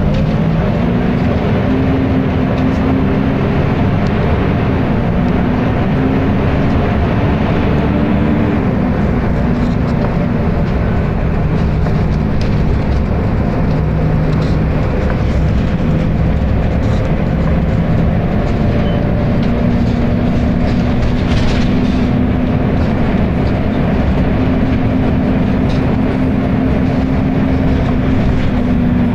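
Volvo B10BLE bus's diesel engine and very loud cooling fan running steadily. The low hum drops in pitch about nine seconds in and rises again around twenty seconds.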